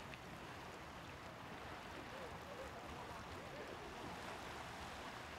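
Outdoor town ambience: a steady wash of background noise with faint, indistinct voices in the distance.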